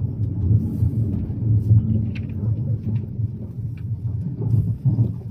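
Italo high-speed train running, heard inside the passenger car as a steady low rumble with a few faint clicks.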